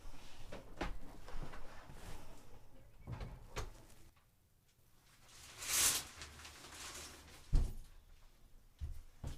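Knocks and bumps of someone moving about a room with a bucket and shovel and going out a door: a short rushing sound about six seconds in, then a sharp thump, the loudest sound, and two lighter knocks near the end.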